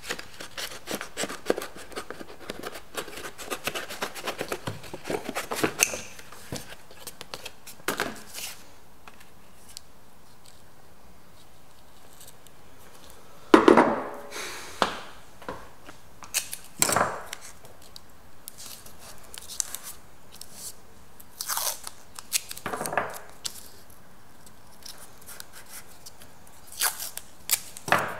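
Tin snips cutting thin cardboard, a quick run of snips through the first six seconds. This is followed by a few separate louder scrapes and handling noises, the loudest about halfway through, and tape being torn off near the end.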